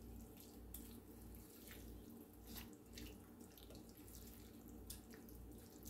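Faint wet stirring of a thick creamy filling with a wooden spoon in a glass dish, with a few light scrapes.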